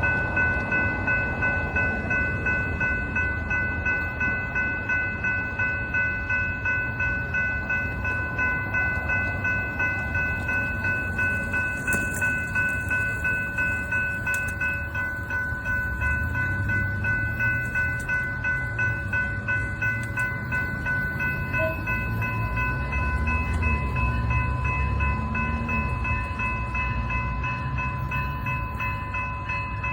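A train rolling past, its wheels clicking rhythmically over the rail joints about twice a second, with a steady high-pitched squeal running throughout. A low diesel engine hum joins about halfway through.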